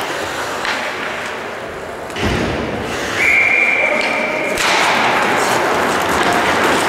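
Ice hockey rink sound: a heavy thud about two seconds in, then a steady whistle blast held for about a second and a half, the referee's whistle stopping play, followed by a louder wash of rink noise.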